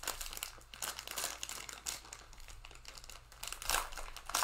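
Plastic cello-pack wrapper of Panini Select football cards crinkling as it is opened by hand, in a run of irregular crackles that grow louder near the end.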